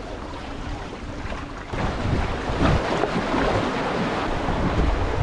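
Wind buffeting the microphone over choppy sea water washing against a rocky seawall; the rumble grows louder about two seconds in.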